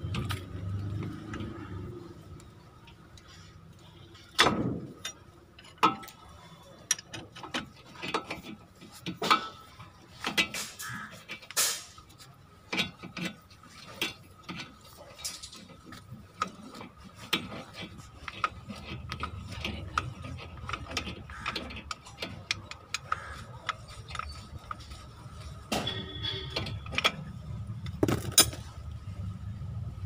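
Wrench being worked in short strokes on a front brake caliper, giving irregular ratchet-like clicks and metal clinks as the caliper piston is pressed back into its bore.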